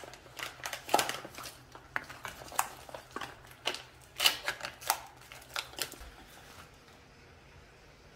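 Black plastic side-dish trays being unpacked by hand: the banded stack pulled apart and the trays handled, giving a run of irregular sharp plastic clicks and crinkles that die away about two-thirds of the way through.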